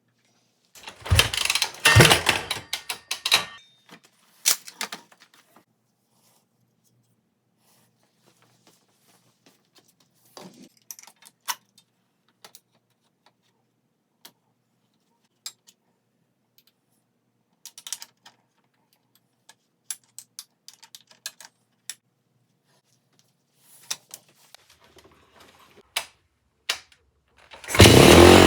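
Metal tools and parts clattering and clicking as they are handled, busiest in the first few seconds and then in sparse knocks. Near the end the Yamaha YZ250F's single-cylinder four-stroke engine starts and runs loudly, its carburettor pilot jet freshly unclogged.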